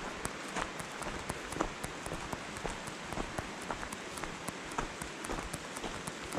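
Hiking footsteps crunching on a gravel trail, irregular gritty crunches over a steady hissing background, with a faint even high ticking several times a second.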